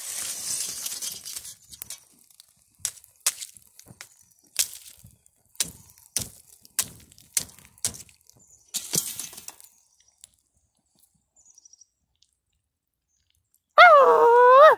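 Small fire of cardboard and leaves burning with whole eggs in it: a hiss for the first two seconds, then a run of sharp cracks and pops, about one or two a second. Near the end comes a loud wavering squeal with a clear pitch, lasting about a second.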